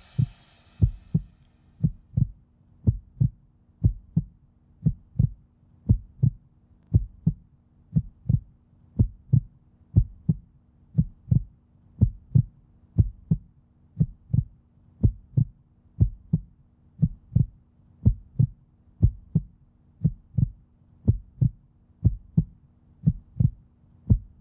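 Heartbeat sound effect: paired low thumps, lub-dub, repeating steadily about once a second over a faint steady hum.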